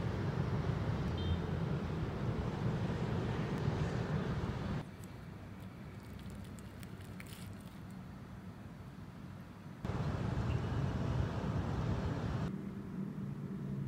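Steady low rumble of distant city traffic. It gives way for about five seconds to a quieter stretch with light clinks of cutlery on a plate, then the traffic returns.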